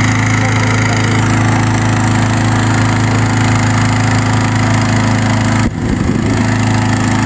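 Petrol-engine balloon inflator fan running at a steady speed, blowing cold air into a hot air balloon envelope. It is a constant engine hum with a steady pitch that dips briefly near the end.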